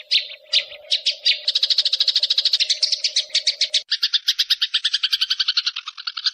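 Recorded songbird song: a few separate high chirps, then a fast even run of repeated notes at about a dozen a second, changing about four seconds in to a lower, doubled run of notes. A faint steady low tone sits under the first part.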